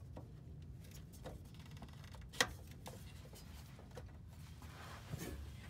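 Faint plastic clicks and handling noise as a canister vent valve solenoid is slid back into its mounting bracket, with one sharp click about two and a half seconds in.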